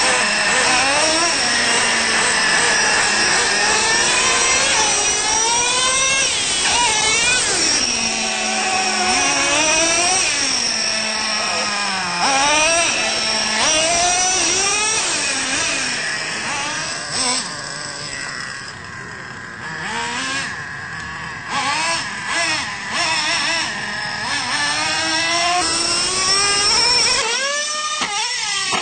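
Traxxas Revo nitro RC truck engine revving hard as the truck is driven, its pitch swinging up and down again and again, with a quieter stretch about two-thirds of the way through.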